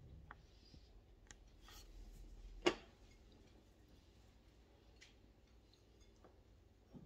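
Faint clicks and light taps of things being handled in a kitchen, with one sharper click about two and a half seconds in, over a low hum.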